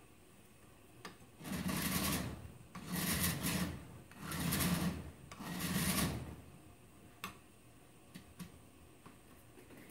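Four strokes of a bastard file across the cut muzzle face of a steel SKS rifle barrel, each under a second long, filing in one direction to flatten the face before sanding. A couple of light taps of the file near the end.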